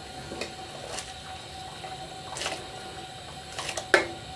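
Water boiling hard in a large aluminium pot as soaked rice is tipped in from a bowl, with scattered splashes and a sharper knock near the end.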